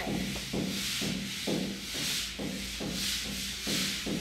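Drilling in the background: a power drill's rough noise pulsing about two to three times a second over a steady low hum.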